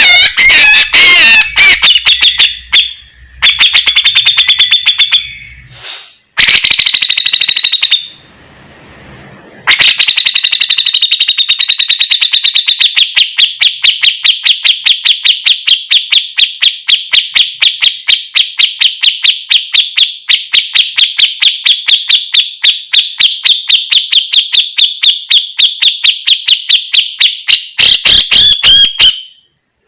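Grey-cheeked bulbul (cucak jenggot) singing loudly. A few varied, chattering phrases come first, then from about ten seconds in a long, fast run of the same sharp note repeated about four times a second, closed by another varied phrase near the end.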